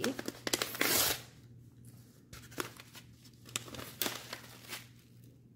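A kraft paper tea pouch being torn open at its notch: one loud rip about a second in, then soft crinkling and a few light clicks as the paper is handled.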